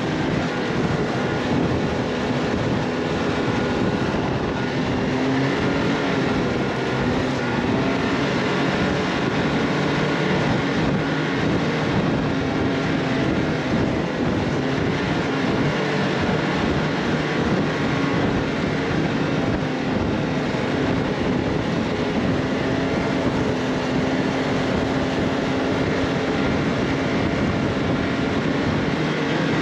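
A vehicle's engine running at a fairly steady speed during a ride, its hum wandering slightly in pitch over a steady rushing noise.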